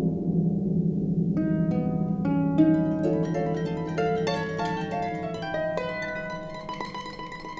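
Background music: a low held note fading under a run of quick plucked notes that starts about a second and a half in, the music growing slowly quieter toward the end.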